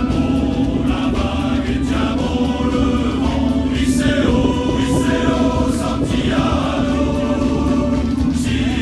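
Background music: a choir singing over a steady sustained low note.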